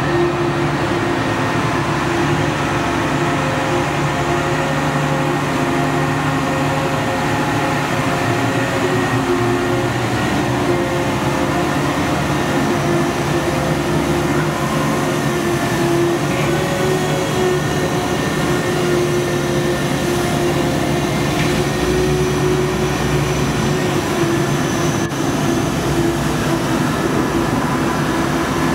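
Volvo A25G water truck running steadily while spraying water from the rear of its tank: a constant machine drone with the hiss of the spray over it.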